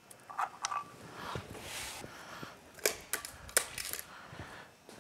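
Cylinder head of a Yamaha R6 inline-four being worked loose and lifted off the cylinder studs by hand: a soft scrape about a second in, then several sharp metallic clicks and knocks around three seconds in.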